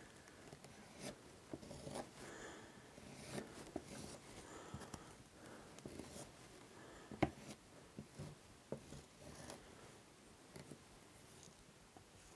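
Faint scraping and smearing of a plastic spreader working construction adhesive over cork roadbed, with scattered light clicks and one sharper tap about seven seconds in.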